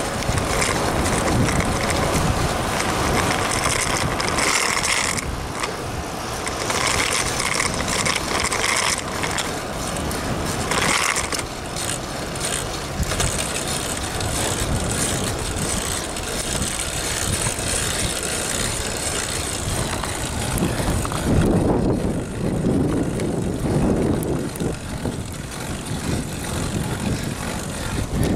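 Road bicycle rolling along: a steady rush of riding noise with the ratcheting click of a freewheel hub while coasting. After about twenty seconds the hiss dulls into a lower rumble.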